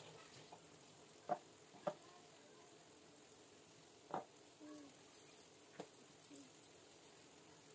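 Soft, sticky dough squished and kneaded by hand in a glass bowl: faint wet squelching, with four short sharp clicks, two close together about a second in and two more later.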